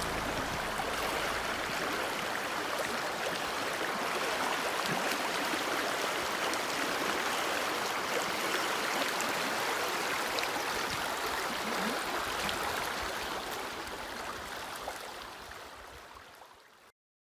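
Steady rush of flowing river water with a few faint ticks, fading out over the last few seconds.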